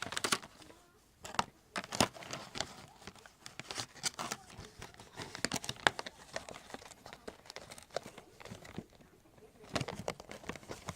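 Cardboard box and its packaging rustling, crinkling and scraping in irregular bursts with sharp clicks as a cable adapter is worked back into it by hand.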